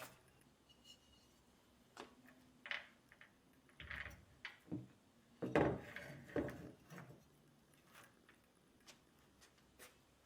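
Light knocks and rubbing of objects being handled, several in a cluster in the middle, then a few faint ticks.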